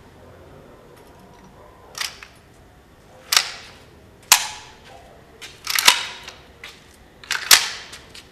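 Sharp metallic clacks from a rifle being handled and worked, about six strikes spaced irregularly roughly a second apart, each with a short ringing tail.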